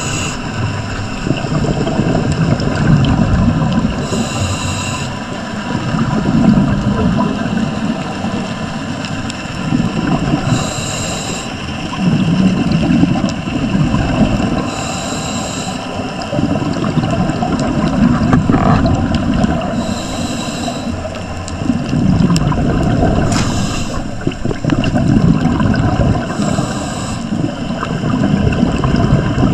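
Scuba diver breathing through a regulator underwater: a brief hiss on each inhale alternating with a rumble of exhaled bubbles, one breath roughly every five seconds.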